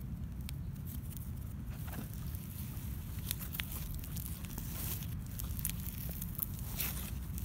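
Foam-bead slime being squeezed and folded around sand slime, giving scattered small crackles and pops that grow more frequent from about three seconds in, over a steady low rumble.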